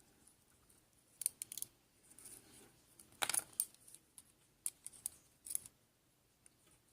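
Light metallic clicks and ticks of tiny lock pins and springs being handled, in a few scattered clusters, the loudest about three seconds in.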